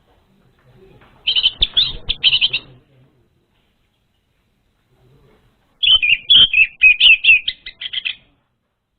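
Orange-headed thrush singing: two quick, high phrases of rapid chattering notes, one about a second in and a longer one near the end, played as a lure song for a young thrush.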